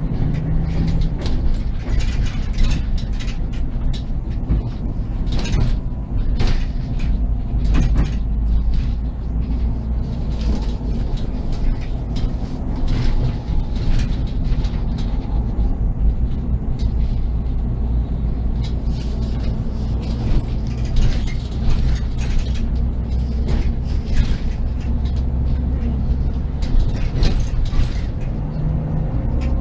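Inside a SOR NB 12 city bus under way: the engine's steady low drone with constant rattling and creaking of the body and fittings.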